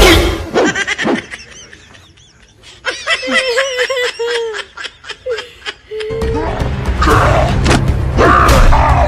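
A child wailing and sobbing in a wavering, drawn-out cry. From about six seconds in, a louder stretch of music and noise takes over.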